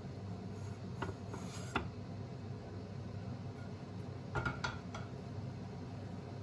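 A few light clicks and taps of small objects being handled, over a steady low hum. A short run of clicks comes about four and a half seconds in.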